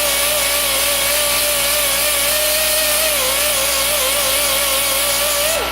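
Die grinder with a sanding roll running against a Chevy steel connecting-rod beam: a steady loud whine with hiss, its pitch wavering as it bears on the metal. Near the end the grinder is let off and its pitch falls away.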